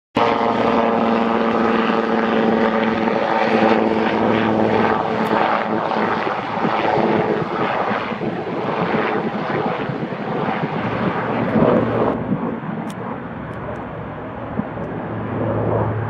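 Sikorsky S-76B helicopter with twin turboshaft engines flying by: engine whine over the beat of the rotors. The sound turns abruptly duller and a little quieter about twelve seconds in.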